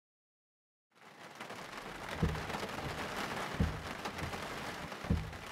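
Heavy rain hitting a moving car's windshield, coming in after about a second of silence, with a low thump about every second and a half from the windshield wipers sweeping.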